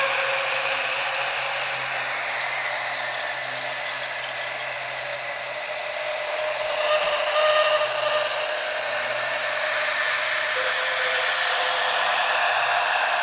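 Layered, looped hand-percussion soundscape: a steady dense hiss of rain- and wind-like shaken textures, with faint thin squealing or whistling tones over it.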